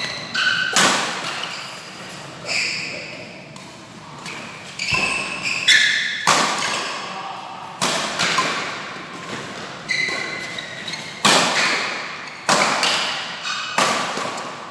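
Badminton rally: rackets strike a shuttlecock about once a second. Each hit is a sharp crack that rings on in a large hall.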